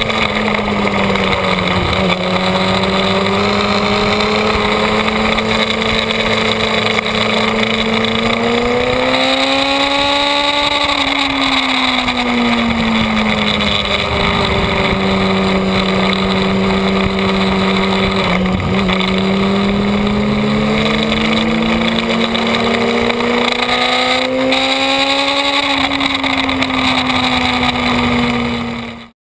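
Sport bike's engine running on track, heard from the onboard camera with strong wind noise; the engine note holds mostly steady, rising and falling smoothly about ten seconds in and again over the last several seconds, then cuts off abruptly at the very end.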